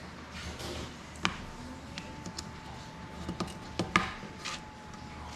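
Small tools and parts being handled and set down on a desk cutting mat: a few sharp clicks and taps, the loudest about four seconds in. A faint steady whine comes in about a second in.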